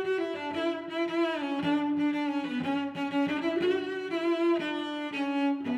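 Background music: a slow melody on bowed strings in a low cello range, held notes that slide from one pitch to the next.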